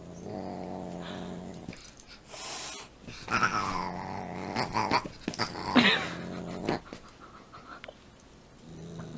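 A dog growling in long low spells, with a short higher cry that sweeps down about six seconds in.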